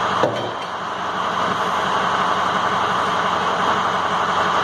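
A sledgehammer strikes metal on the tractor once, with a short ring, about a quarter-second in, over a steady mechanical running noise in the shop.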